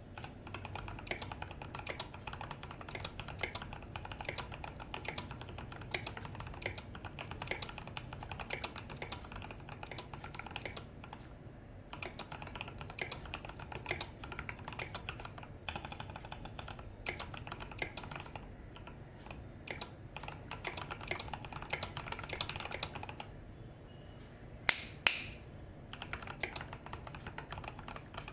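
Fast typing on a mechanical keyboard with Durock Koala 67 g tactile switches: a dense, uneven patter of key presses, with short lulls. Two much louder, sharper clicks come close together about 25 seconds in.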